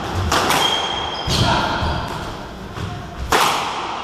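Squash rally: the ball cracking off rackets and the court walls, several sharp hits that echo around the enclosed court, with short squeaks of players' shoes on the wooden floor between them.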